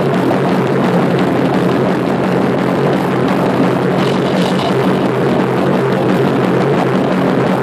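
Metal band playing live: heavily distorted electric guitars and bass in a dense, steady wall of sound, with held low notes running under it. It is picked up through a phone's microphone close to the stage.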